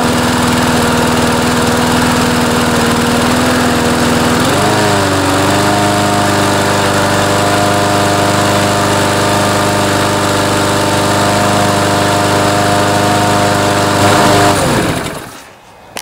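Briggs and Stratton 6.75 series EX single-cylinder mower engine running steadily, then revving up about four and a half seconds in and holding a higher speed. At full speed it is not quite revving up as much as it should, a sign of too little governor spring tension on the aftermarket carburetor's throttle linkage. Near the end it winds down and stops.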